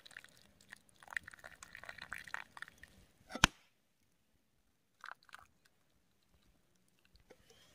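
Faint, irregular small clicks and crackles, then one sharp click about three and a half seconds in, followed by near silence.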